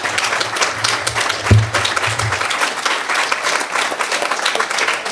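Audience applauding: a dense, steady crackle of many hands clapping, with a low thump about one and a half seconds in.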